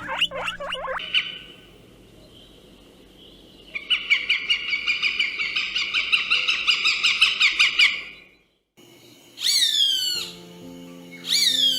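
Bird calls: a quick run of falling chirps, then a rapid trill of repeated notes for about four seconds. After a short break come two loud, falling calls.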